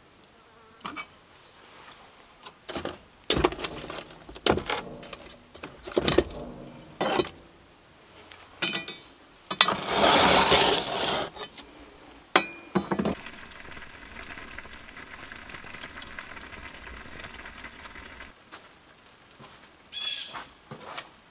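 A metal spoon knocking and scraping in a cast-iron pan of pot roast, several sharp knocks with short ringing, then a longer scraping rush as the pan goes into the earthen oven. A fly then buzzes steadily for several seconds, and a few short chirps come near the end.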